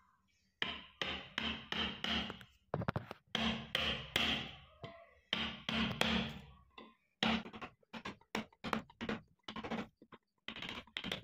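A wood chisel cutting into a babul-wood plane body in a run of short, separate strokes, digging out the cavity for the plane blade. Near the end the strokes come shorter and quicker.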